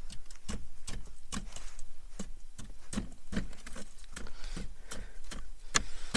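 Repeated sharp knocks, about two to three a second, as frozen snow and mud caked in a Mahindra Thar's wheel arch is struck and broken loose.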